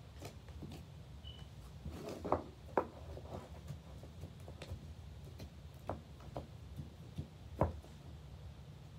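Glitter slime being squeezed and pressed down into a small plastic tub by hand, giving scattered soft clicks and pops, with a few louder ones about two to three seconds in and near the end.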